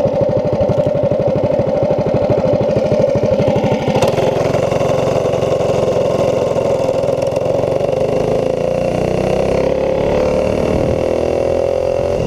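Predator 212 single-cylinder engine on a Doodlebug mini bike pulsing at idle, then opened up about four seconds in. The engine note holds level at first, then climbs steadily in pitch as the bike gathers speed. The owner blames the sluggish pull on a worn-out clutch.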